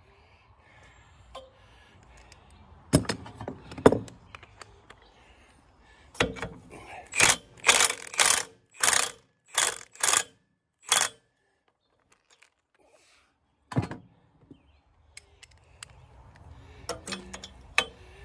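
Socket ratchet wrench clicking in a quick run of about nine back-and-forth strokes, spinning off a loosened nut on the engine's cylinder head. A couple of sharp metal knocks come before the run and a single one after it.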